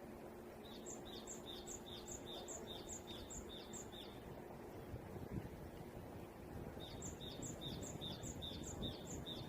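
A songbird singing two runs of quick, evenly repeated high notes, about three a second. One run lasts some three seconds; the second starts about seven seconds in. A steady low rumble of outdoor background noise runs underneath.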